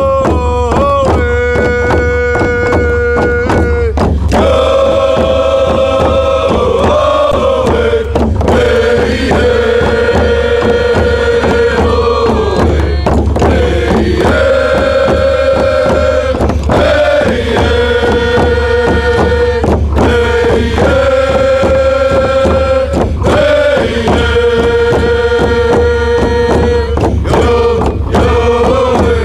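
Background music: a melody of long held notes in phrases of about three to four seconds, over a steady low drone.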